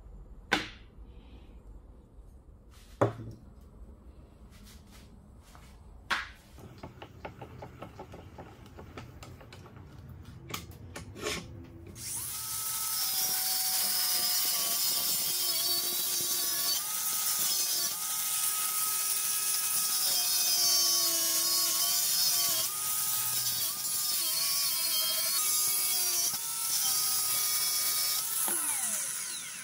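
Cordless angle grinder with a cut-off disc cutting into the steel casing of a car oil filter held in a vise. It starts about twelve seconds in, and its motor pitch wavers as the disc bites. Before that there are a few sharp knocks and clicks.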